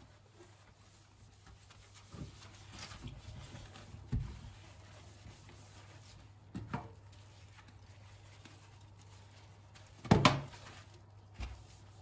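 Wet cloth wiping and scrubbing a stainless steel sink basin, with a few soft knocks against the metal, the loudest about ten seconds in.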